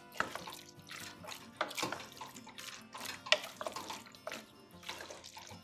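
Wooden spoon stirring a thick, wet mix of black beans and melted cream cheese in a stainless steel saucepan: irregular wet squelches and scrapes with occasional taps against the pot, over faint background music.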